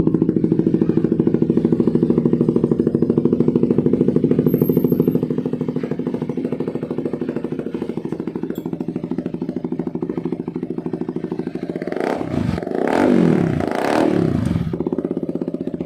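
CF Moto 300SR single-cylinder engine idling steadily through an Akrapovic full exhaust, then revved twice near the end, the pitch rising and falling with each blip.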